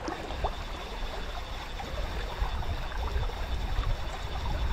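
Steady rush of river current flowing over a shallow, rocky bar, with a low rumble underneath.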